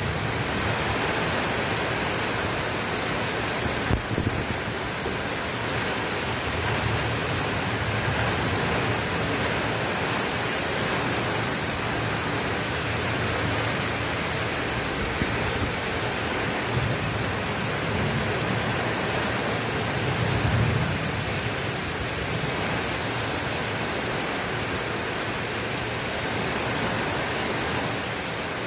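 Heavy rain pouring steadily, with a few low rumbles swelling and fading, the strongest about twenty seconds in. There is one sharp knock about four seconds in.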